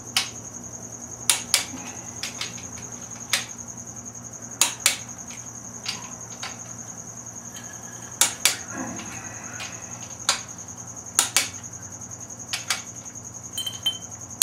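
Torque wrench tightening the crankshaft main bearing cap bolts on a Ford 302 V8 in stages, set at 50 ft-lb. Sharp metallic clicks come every second or two, some in quick pairs, each click-off marking the set torque reached. A steady high-pitched whine runs underneath.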